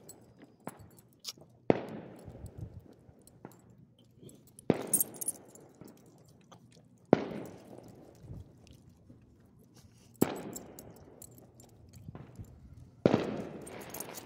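Fireworks going off: five sharp bangs about three seconds apart, each trailing off in an echoing rumble.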